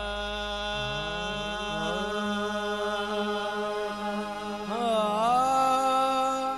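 Qawwali lead singer holding long, drawn-out sung notes over a steady harmonium drone, with no drumbeat. Near the end the voice slides up to a new held note.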